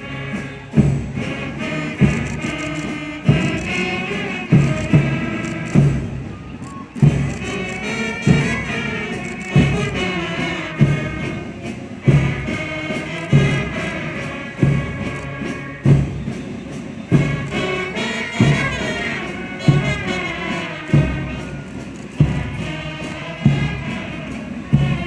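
Band playing a slow march, a melody over a heavy drum beat that falls about every 1.3 seconds.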